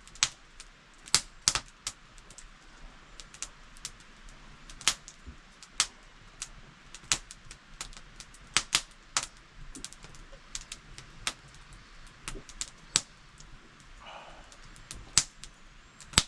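Campfire crackling: burning wood snapping and popping in irregular sharp clicks, a few a second and of varying strength.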